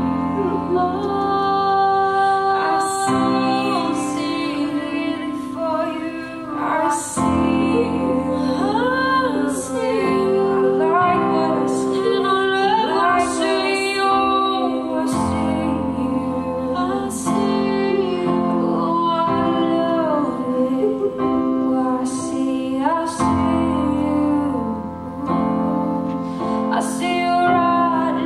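A woman singing a slow song with vibrato over sustained keyboard chords and deep bass notes that change every few seconds.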